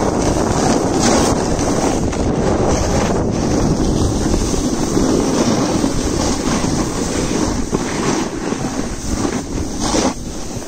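Wind rushing over the microphone of a camera carried down a ski slope, with the hiss of the filmer's edges sliding on packed snow. It is a continuous, loud rush that dips briefly near the end.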